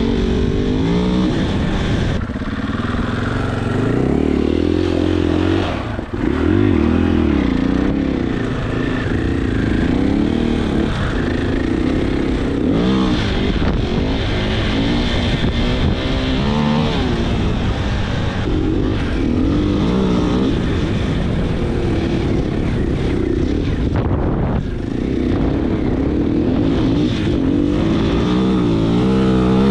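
Husqvarna dirt bike engine running under way, its revs rising and falling again and again with the throttle, with wind noise over the microphone. The engine note drops briefly about six seconds in.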